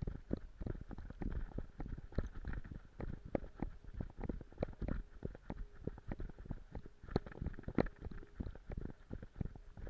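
Footsteps and rustling of someone walking through marsh vegetation: irregular knocks and thuds, several a second.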